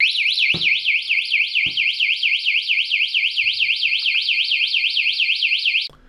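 NuLock Bluetooth cable bike lock's built-in 110-decibel anti-theft alarm, set off by shaking the lock: a loud electronic siren warbling rapidly up and down, about five sweeps a second, that starts abruptly and cuts off suddenly near the end. Two light knocks from the lock being handled come within the first two seconds.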